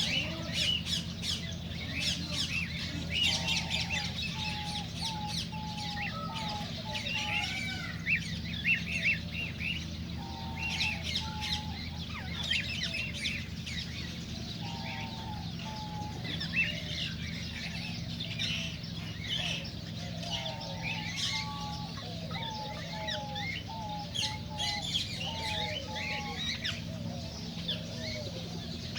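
Cockatiels chirping and whistling without pause, with a lower call of short notes repeated in runs every few seconds, over a steady low hum.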